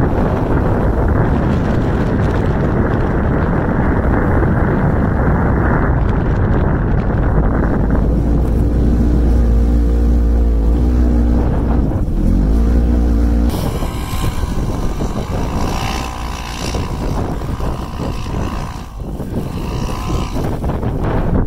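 Polaris RZR 900 S side-by-side's twin-cylinder engine running under throttle through snow, with wind rushing over the microphone. Its pitch rises and falls several times past the middle. About two-thirds through the sound cuts to a thinner, quieter engine note with wind.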